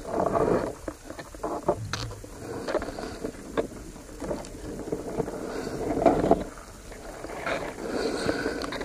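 Muffled underwater sound of a spearfisher swimming along a pond bottom: swells of water noise, loudest about a second in and again around six and eight seconds, with scattered small clicks and knocks on the camera housing.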